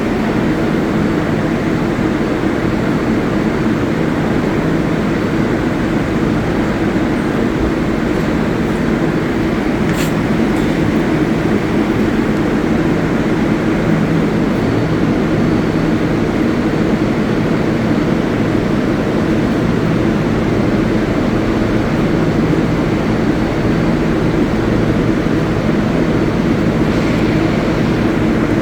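A New York City subway train in the station, giving a steady loud hum with a noisy rush, with one sharp click about ten seconds in.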